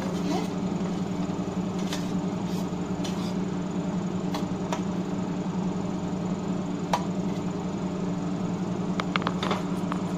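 A spatula stirring thick okra masala gravy in a non-stick kadai, with a few sharp clicks as it taps the pan and a short run of clicks near the end. A steady low hum runs underneath.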